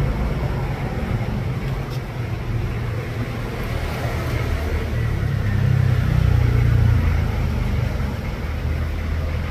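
Steady low rumble of background noise, swelling louder for about a second and a half around six seconds in.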